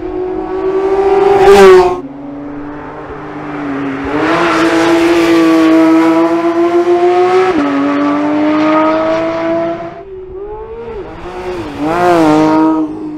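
Porsche 911 GT3 (992) naturally aspirated flat-six at high revs on track. It climbs to a loud peak near the start, pulls long and hard with an upshift where the pitch steps down, then blips up and down before another loud rev near the end.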